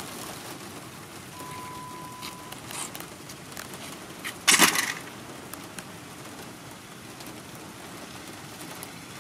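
Rain falling on a car, heard from inside the cabin as a steady patter. A steady beep lasts about a second near the start, and a loud, sudden noise lasting about half a second comes about four and a half seconds in.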